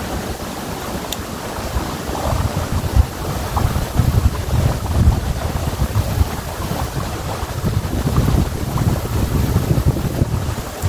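Wind buffeting the microphone in uneven gusts, over the steady rush of a flowing river.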